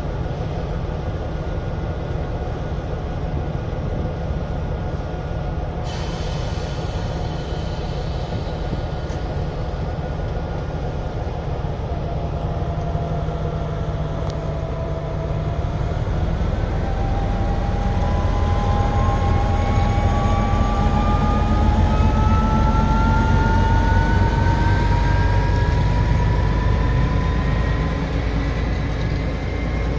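M62 'Szergej' diesel locomotives running with a steady low drone. About halfway through the drone grows louder, and a whine climbs steadily in pitch as a train moves off.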